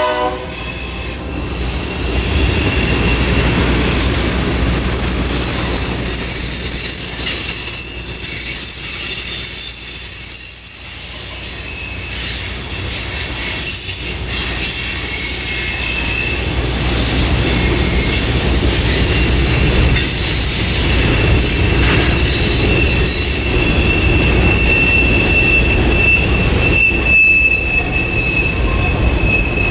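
Freight train's tank cars and covered hoppers rolling past, steel wheels rumbling on the rail with thin, high-pitched wheel squeals that come and go, a steady squeal running through the second half.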